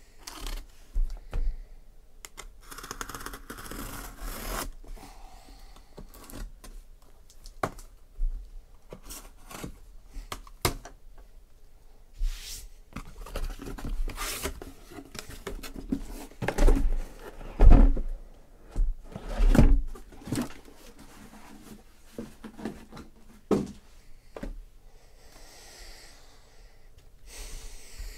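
Cardboard shipping case being slit open with a knife and unpacked: the blade cutting packing tape, cardboard flaps and boxes rustling, scraping and clicking, with a few heavy thumps about two-thirds of the way in.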